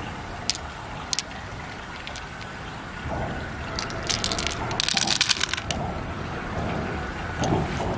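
Freshly harvested pearls clicking against each other in wet hands: a few single clicks, then a quick rattle of many pearls about five seconds in, over a steady low rumbling background.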